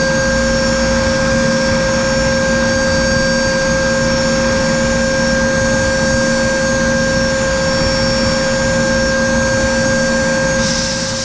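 Datron M8Cube high-speed spindle running at 32,000 RPM, profiling an aluminium part with a small end mill: a steady high whine over a steady cutting hiss. A burst of higher hiss joins near the end.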